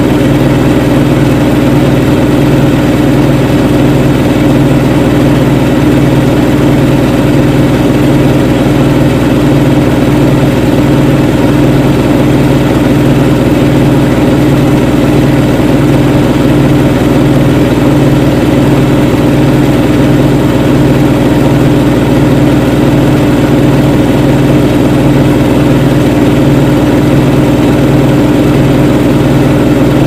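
Siemens Siwamat 7163 washing machine running with its drum spinning: a loud, steady motor hum with a low tone that pulses at an even rhythm.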